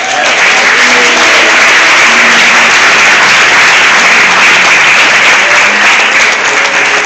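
A congregation applauding: many hands clapping in a dense, steady patter that stays loud throughout and begins to thin near the end.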